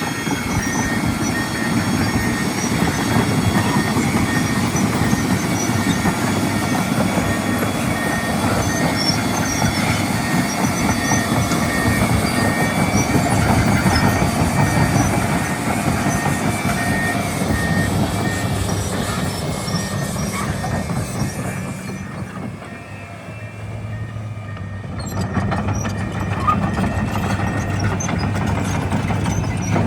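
Komatsu PC490LC-11 excavator travelling on its steel crawler tracks at high travel speed: a dense clanking and grinding with thin high squeals over the diesel engine. About three quarters of the way through the track noise dies away, leaving the engine running with a steady low hum.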